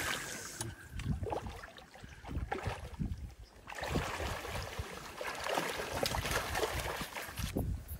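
Shallow stream water splashing and sloshing as a hooked brown trout thrashes at the surface and is scooped into a landing net, with irregular knocks and sloshes. The splashing is thickest in the second half.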